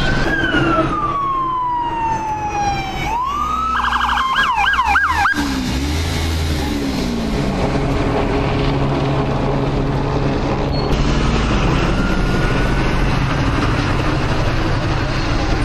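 Police car siren sounding a long wail that falls slowly in pitch and rises again, then switching to a fast yelp for about a second and a half before cutting off abruptly about five seconds in. Steady vehicle engine and street traffic noise follow.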